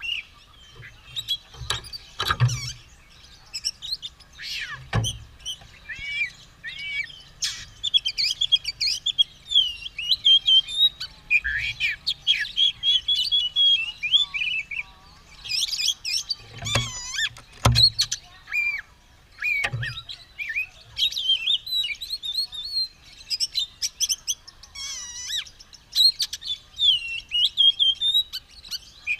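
Oriental magpie-robin (kacer) singing continuously, a fast, varied run of clear whistles and warbled phrases, the full, steady song of a bird in top form. A few sharp knocks break in, mostly near the start and the middle.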